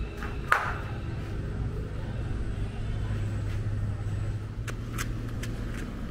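Urban street ambience: a steady low rumble, with one sharp clack about half a second in and a few faint clicks near the end.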